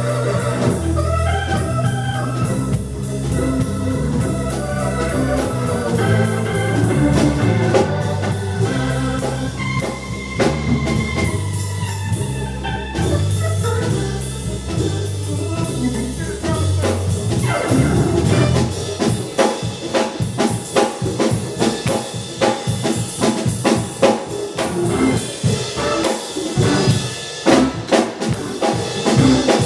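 Live band instrumental: sustained organ chords over low bass notes, with a drum kit coming in about two-thirds of the way through and playing a steady beat.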